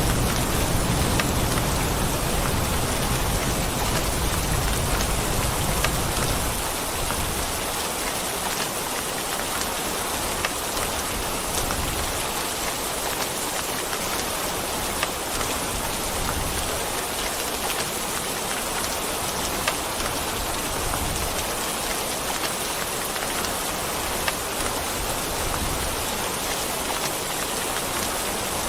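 Steady heavy rain falling on a surface. A low rumble of thunder dies away about six seconds in, and a few single drops ring out louder now and then.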